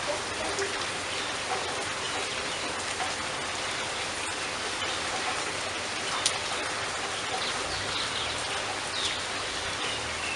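Steady rain falling, a dense even hiss with scattered individual drops ticking on a surface; one sharper drop or tap about six seconds in.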